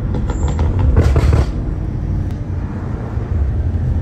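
BMW M5 F90's twin-turbo V8, fitted with catless downpipes and aftermarket intakes, heard from inside the cabin while driving, a steady low engine drone. A few quick clicks come early, then a brief louder rush of noise about a second in.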